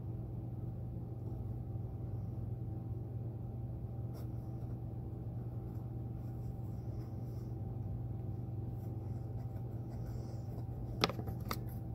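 Faint rustle of nylon thread being drawn and worked through boot leather by hand, over a steady low hum. A couple of sharp clicks come near the end.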